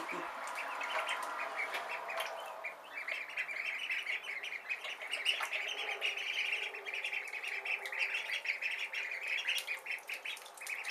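A brood of Khaki Campbell ducklings peeping together: many short, high chirps overlapping in a continuous chorus.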